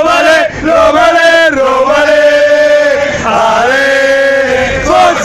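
A group of men singing a football chant together in unison, with long drawn-out notes that slide up and down, in the close space of a coach bus.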